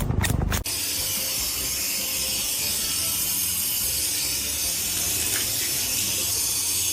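Rapid clicking cut off about half a second in by a steady, even hiss that holds at one level.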